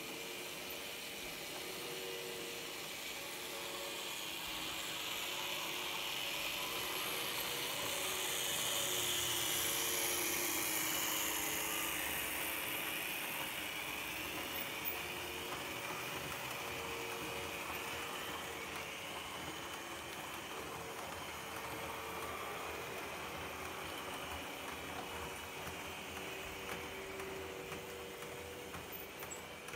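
Märklin H0 model freight train running past on its track: the small electric motor whirs and the wheels rattle along the rails. It grows louder to a peak and then slowly fades as the train moves away.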